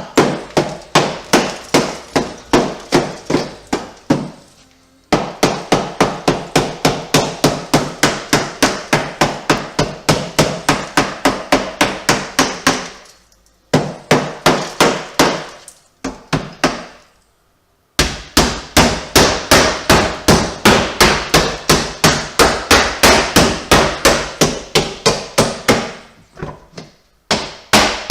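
Hammer striking a sheet-metal replacement patch panel to shape it to fit: runs of sharp, evenly paced blows, about three a second, broken by a few short pauses.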